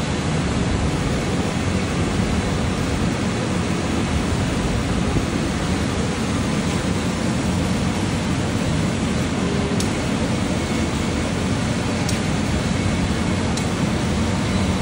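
Laser cutting machine running during a cut: a steady hiss with a low hum from its air assist and fans, with a few faint ticks near the end.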